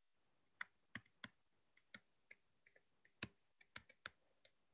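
Faint, irregular clicks and taps of a pen stylus on a writing tablet while handwriting is written, about a dozen in all, the loudest a little after three seconds in, over near silence.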